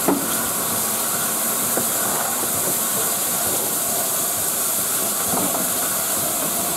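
LNER Peppercorn A1 Pacific steam locomotive 60163 Tornado starting away, with a steady hiss of steam escaping low down at its cylinders, typical of open cylinder drain cocks on departure.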